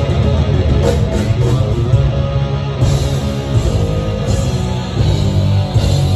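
Live heavy metal band playing loud: electric guitar over bass guitar and drums, in a dense, unbroken wall of sound.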